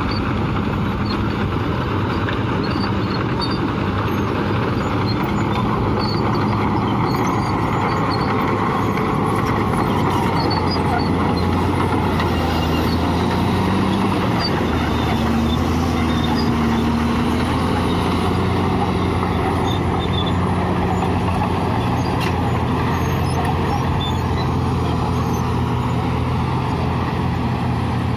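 Bulldozer's diesel engine running continuously under load, its pitch shifting a little now and then.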